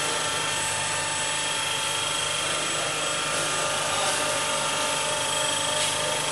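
Three-phase induction motor and its coupled alternator, fed from a variable frequency drive, running steadily at about 1,500 rpm: an even whirring with several steady high-pitched whining tones.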